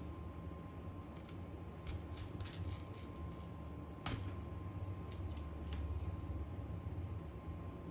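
Small metal repair tools and phone parts clicking, tapping and scraping in a string of short strokes, the sharpest about four seconds in, over a steady low hum and a faint steady tone from workshop equipment.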